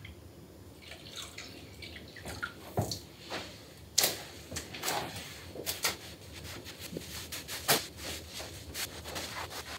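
Wet splashing and dripping as diluted cleaning solution is slopped and wiped over rubber floor mats to soak them, in irregular splashes with a few louder ones.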